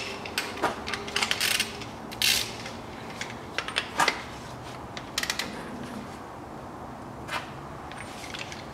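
Ratchet wrench clicking in short runs as it turns a transmission oil plug, with a few metallic knocks of the tool.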